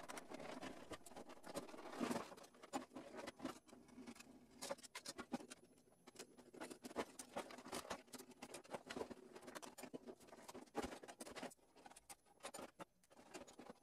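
Faint irregular clicks, scrapes and knocks of a Keurig K40 coffee maker's plastic housing being handled and taken apart with a screwdriver.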